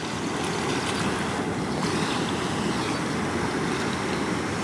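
Steady rushing of fast-flowing, turbulent canal water, mixed with wind on the microphone.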